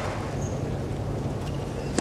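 Steady murmur of a tennis stadium crowd, quiet while the server prepares, over a low steady hum. It ends with a single sharp crack of the ball struck on the serve.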